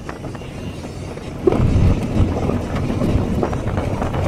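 Car driving over a rough dirt and gravel track, heard from inside: a low rumble of tyres and suspension over stones, getting louder about a second and a half in.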